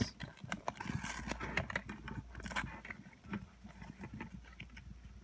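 Cardboard packaging insert being handled and bent as earbuds and their cable are pulled free: irregular rustling, scraping and small clicks, with louder rustles about a second in and again about two and a half seconds in.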